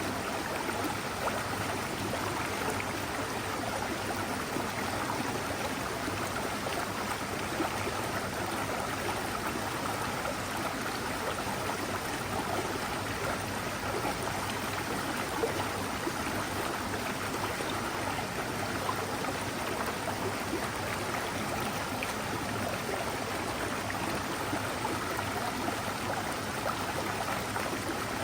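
Mountain stream flowing over rocks, a steady, unbroken babble of water.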